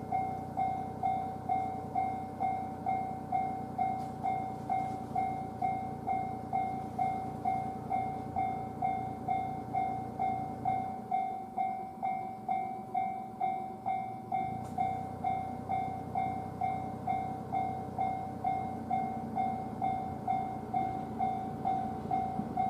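Japanese railway level-crossing alarm ringing its steady electronic bell, about two strokes a second, over the rumble of a passing train. The rumble drops away for a few seconds about halfway through and then comes back.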